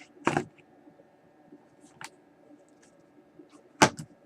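Knocks and clicks from handling the 15-inch PowerBook G4's removable battery and its case as the battery comes out of its bay: a knock just after the start, a faint click about two seconds in, and a sharp click near the end.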